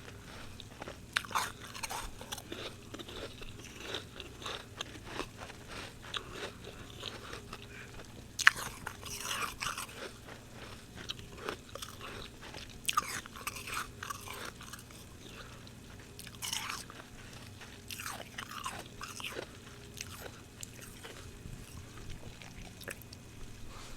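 Close-up crunching and chewing of mouthfuls of soft freezer frost, in irregular crisp crunches with a sharp bite about eight seconds in.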